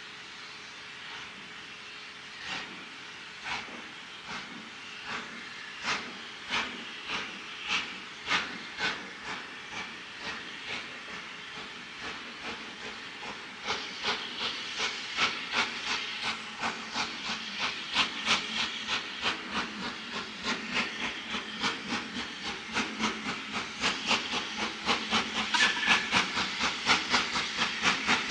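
WD 2-8-0 steam locomotive 90733 working a train: a rhythmic chuffing exhaust over a steady hiss of steam. The beats start faint and come louder and closer together as the engine approaches.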